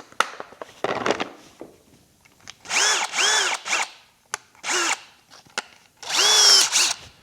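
Electric drill run in several short trigger bursts, each spinning up and winding down in pitch, with a bit for enlarging a nail hole in a motorcycle tire so a plug will fit.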